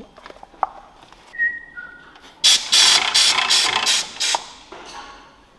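A workshop tool running in a rapid series of short, ratchet-like bursts for about two seconds, preceded by a few light metal clicks and a brief faint whistle.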